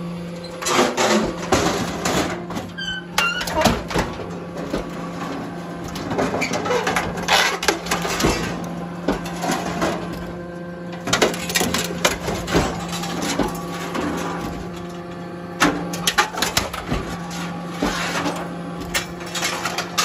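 Ludong hydraulic scrap metal shear at work: a steady hum from its hydraulic power unit, broken every few seconds by clusters of metallic clanks and crunches as the blade cuts scrap steel plate and bar being fed in.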